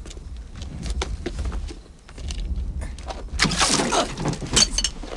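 Scattered clicks over a low rumble, then, about three and a half seconds in, a burst of splashing as liquid is poured over a man's face, lasting about a second and a half.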